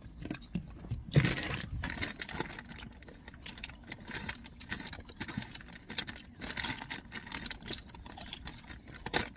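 Plastic wet-wipe packet being torn open and handled: irregular rustling and crinkling with small clicks, loudest about a second in.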